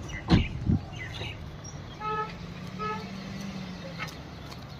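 A vehicle horn gives two short toots about two seconds in, over the low hum of an engine running. Two low thumps come in the first second.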